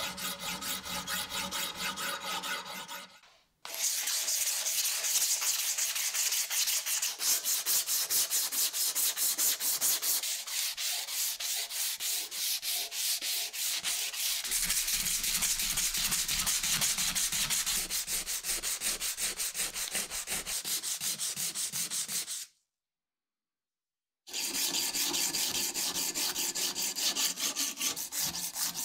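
Hand sanding of a cleaver's wooden handle with sandpaper: a steady, rapid rasp of back-and-forth strokes. It cuts out briefly about three seconds in and again for about two seconds near the end.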